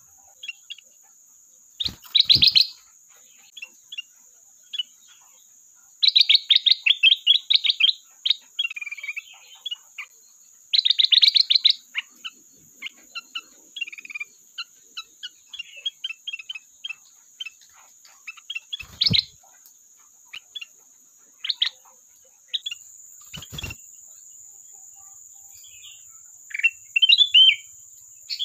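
Kutilang emas, a bulbul, singing in bursts of rapid repeated notes and scattered short chirps. A steady high whine runs underneath, and there are three brief knocks.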